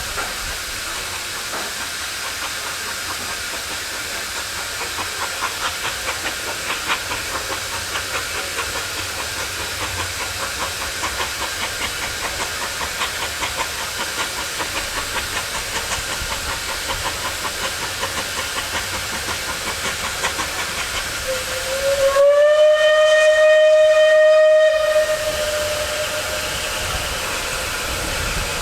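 Steam locomotive at work: a steady hiss of steam with a fast, even run of exhaust beats. About three-quarters of the way through comes a single steam whistle blast of about three seconds, the loudest sound, rising in pitch as it opens and then holding one note.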